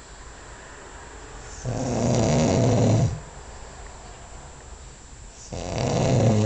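A man snoring heavily: two long, loud snores about four seconds apart, the second running on past the end, a rasping sound that is likened to choking rather than snoring.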